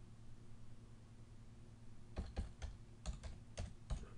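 Computer keyboard keys tapped in a quick run of about seven strokes, starting about halfway through, as a number is typed in. A low steady hum runs underneath.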